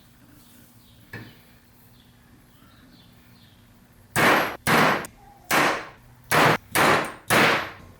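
Hammer blows on a steel wheel hub, six heavy strikes with a short ring after each, starting about four seconds in, as the hub is driven out of its wheel bearing.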